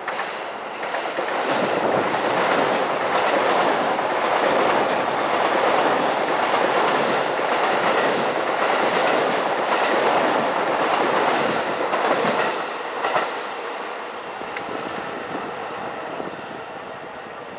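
Orange-striped electric commuter train passing close by: a steady rumble of wheels on rail with a regular clickety-clack of wheels over rail joints. It builds up about a second in and fades away from about twelve seconds on.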